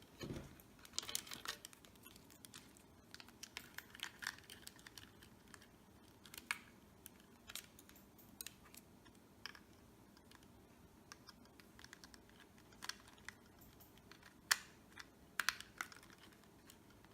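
Irregular light plastic clicks and taps as the snap-in landing gear legs of a Holy Stone X401H-V2 quadcopter are handled and pressed into the drone's plastic body, with one sharper click near the end.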